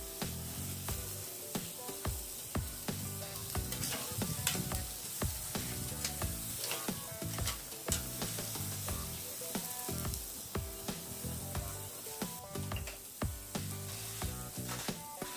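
Ribeye steaks sizzling over a charcoal kettle grill, with dense, irregular crackling as the fat spits on the coals. Tongs toss vegetables in a perforated metal grill basket.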